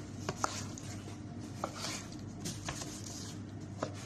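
Kitchen knife cutting raw chicken into small pieces on a cutting board: a few scattered light taps of the blade on the board and soft slicing swishes, over a steady low hum.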